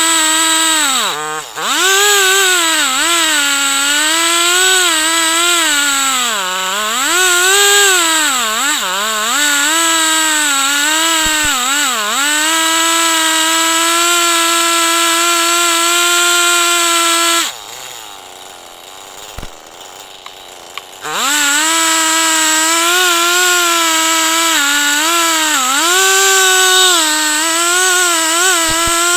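Chainsaw engine running near full throttle while ripping a log lengthwise in an Alaskan-style chainsaw mill, its pitch sagging and recovering again and again as the chain loads up in the cut. The sound breaks off for about three seconds past the middle, then comes back at full speed.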